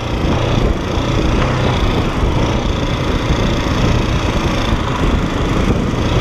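Motorcycle engine running steadily under load on a rough, rocky dirt track, mixed with knocks and rattles from the bike going over the stones.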